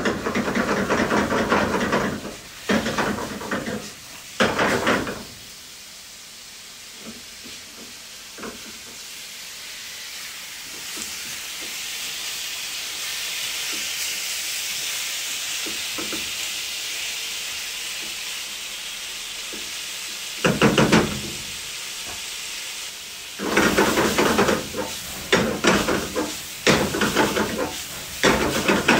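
Marinated diced sheep's liver frying in a pan over a high gas flame, with a steady sizzle and hiss that grows through the middle. Bursts of spatula stirring and the pan being shaken come in the first few seconds and again through the last third. The high heat is meant to sear the liver quickly.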